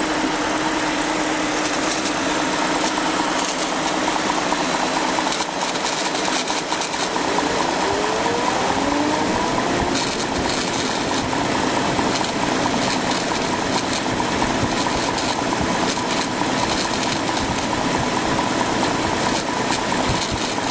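BMW N62 V8 engine running with a steady whine over its noise, and a few rising whines about eight seconds in. The owner suspects a bad bearing behind the strange noise.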